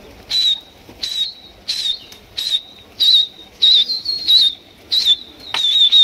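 A pigeon keeper whistling at a flying flock: about nine short, high, breathy whistles in a steady rhythm, roughly one every two-thirds of a second, each with a quick wavering flick in pitch.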